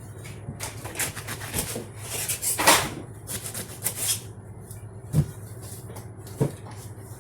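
Rustling and crackling handling noises, densest in the first half, then two short knocks, as produce is worked, over a steady low hum.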